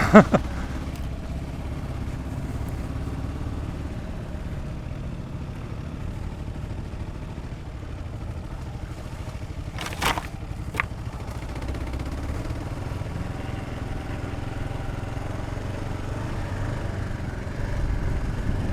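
Dual-sport motorcycle running steadily along a trail, with two sharp knocks about ten seconds in.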